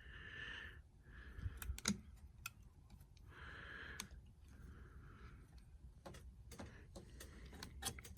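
Scattered light clicks and taps, about eight, irregularly spaced, as parts of an antique NCR cash register's internal mechanism are handled and worked loose.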